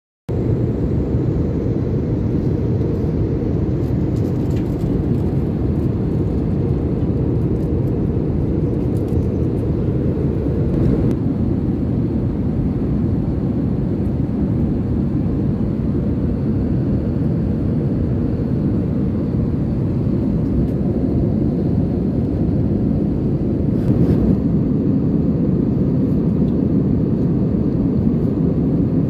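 Jet airliner cabin noise in cruise: a low, steady rumble of engine and airflow that hardly changes.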